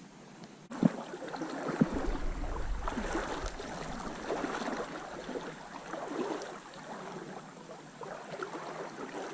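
Stream water running and gurgling, in uneven splashy surges. Two sharp knocks come about one and two seconds in.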